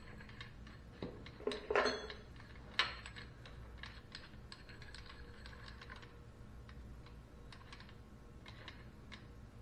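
Steel studs being threaded by hand into T-nuts in a machine table's T-slots: light metallic clicks and ticks, with a few sharper clinks in the first three seconds.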